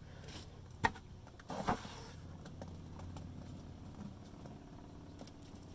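Quiet handling sounds of a gloved hand working wet stucco patch into a wall hole beside a plastic bucket: a sharp click about a second in and a brief scrape shortly after, over a steady low hum.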